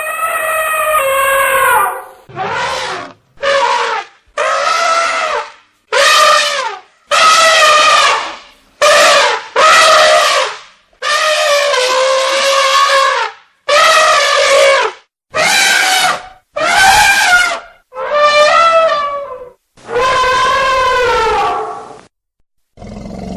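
African elephant trumpeting: a run of about a dozen loud, brassy calls, each a second or two long, some sliding in pitch, with short breaks between them.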